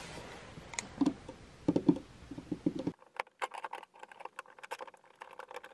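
Clicks and taps of a plastic outlet cover plate being fitted against the wall and its screw driven in, with a quick run of small sharp clicks in the second half.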